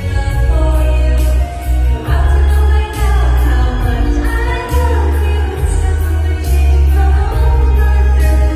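A woman singing a pop song live over a loud backing track, with a heavy pulsing bass and a steady hi-hat beat.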